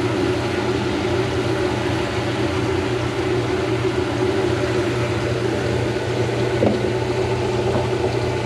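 Garbage disposal motor running steadily with a constant hum while the water from both half-filled sink basins drains through it, run to shake the newly installed ABS drain pipes as a leak test. One brief knock about three-quarters of the way in.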